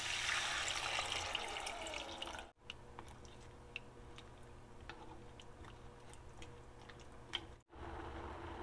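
Water poured from a jug into a steel pot of fried vegetables and chili paste, splashing for about two and a half seconds. Then, after a cut, quieter light ticks of a spoon stirring the broth against the pot.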